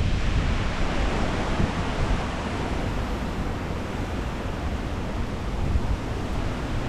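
Hurricane wind blowing steadily, a rushing hiss with a low rumble of wind buffeting the microphone.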